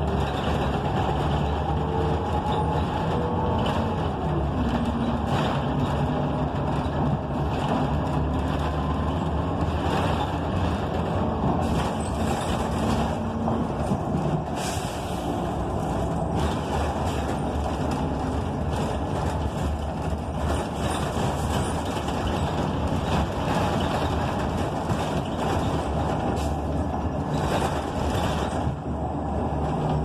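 Cabin noise of a 2008 NABI Metro 45C city bus under way: its Cummins Westport ISL G natural-gas engine and Allison B400R automatic transmission running, with road noise. The engine tones glide and step in pitch in the first few seconds as the bus changes speed.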